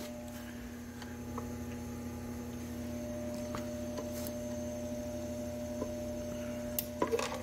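Steady electrical hum with several even tones, and a few faint clicks and taps of metal parts being handled, scattered through it.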